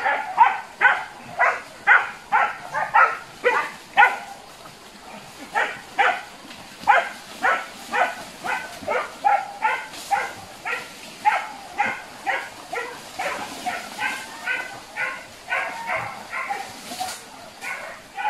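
Hunting dogs barking over and over, about two to three barks a second, with a short pause about four seconds in: dogs baying while chasing a wild boar through the brush.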